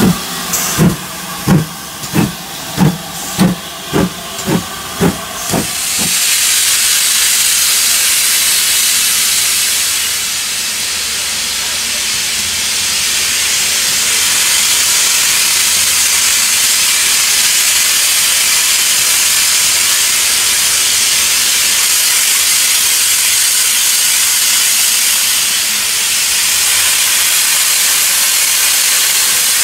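A steam locomotive's exhaust beats, about two a second and quickening as it pulls away, for the first few seconds. Then a steady, loud hiss of steam from the open cylinder drain cocks of LMS Princess Coronation Pacific No. 6233 Duchess of Sutherland.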